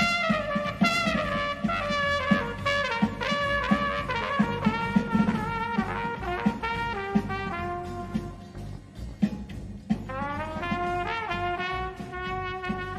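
A solo trumpet-family brass horn plays a flowing melody with a band of saxophones and strings, over a regular low beat. The music thins out briefly about two-thirds of the way through, then the horn comes back in.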